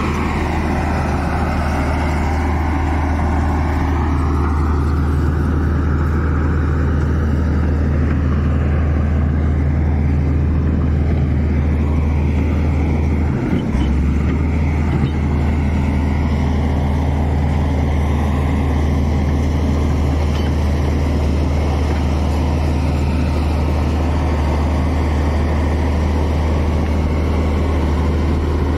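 Komatsu crawler bulldozer's diesel engine running steadily as the dozer pushes soil with its blade: a deep, continuous drone, briefly broken about 13 seconds in.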